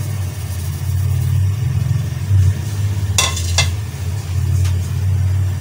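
A steady low electrical or motor hum runs throughout. About three seconds in come two short, sharp clicks as spices are tipped off a plate into a bowl of gram flour.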